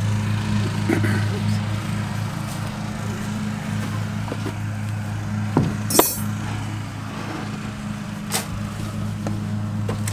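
Pine shavings being scooped into a plastic bucket and tipped into wooden nest boxes, with small rustles and clinks and a sharp knock of the bucket about six seconds in, over a steady engine-like hum.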